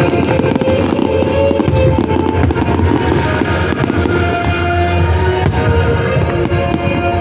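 Fireworks bursting and crackling in a stream of sharp pops and low booms, over loud music with held notes playing along with the show.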